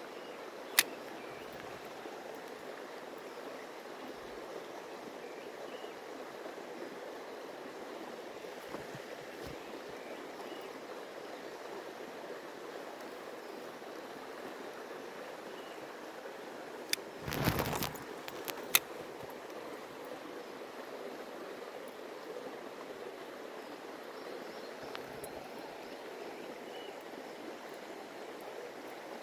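Stream water running steadily. A sharp click comes about a second in, and a brief louder burst of noise with a few clicks comes a little past halfway.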